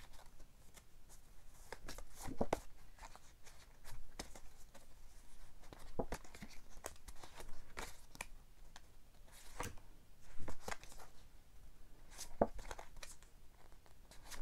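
A stack of stiff printed art cards being handled and shuffled, one card slid behind another, making soft rustles and card-on-card slaps every second or two.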